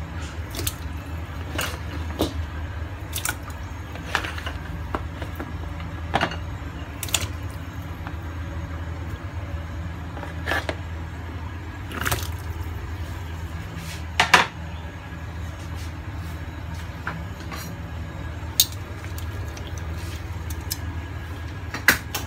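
Kitchen handling sounds over a steady low hum: scattered knocks and clicks of a steel stockpot, lid and plastic container being handled. Near the middle, carrot chunks splash into the pot of water.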